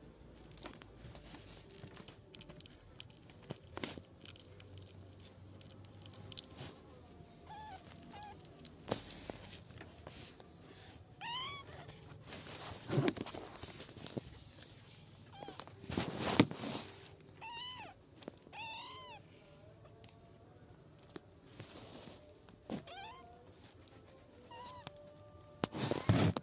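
Kittens mewing: short, high-pitched mews that rise and fall, coming in small clusters. Loud rustles and bumps of fur and bodies close to the microphone come in between.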